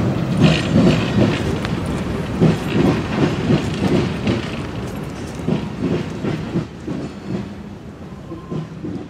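Freight train of boxcars and covered hoppers rolling past, its steel wheels clacking over rail joints in a rumbling, uneven rhythm that grows quieter toward the end.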